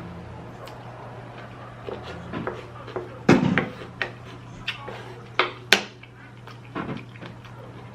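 Scattered clicks and knocks of food and dishes being handled while eating, the loudest a thump about three seconds in followed by several sharp taps.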